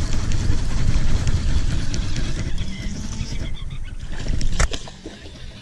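Wind buffeting a camera microphone on an open boat: a loud, low, rushing rumble. About four and a half seconds in there is a single sharp knock, and the rumble then eases.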